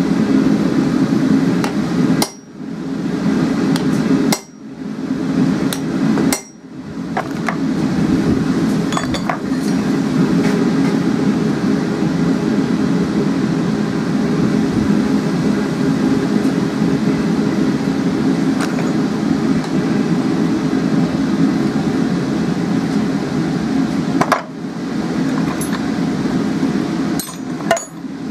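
Hammer striking a hand punch to drive a hole through the hot, flattened, forge-welded end of a 12 mm square steel hook on an anvil: three heavy blows in the first seven seconds, then lighter taps and clinks, one about 24 seconds in and a couple near the end. A steady low roar runs underneath.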